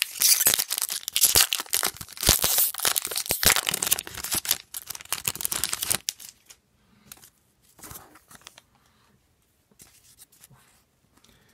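The foil wrapper of a hockey card pack being torn open and crinkled, loud and crackling for about six seconds; then only faint, scattered rustles as the cards are handled.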